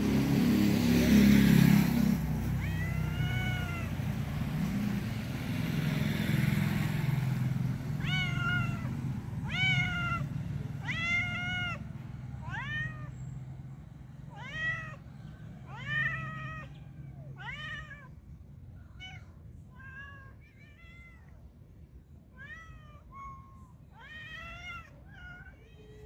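Cats meowing over and over, each meow a short call that rises and falls in pitch. The meows come about one a second and more often in the second half, over a low rumble that fades after the first several seconds.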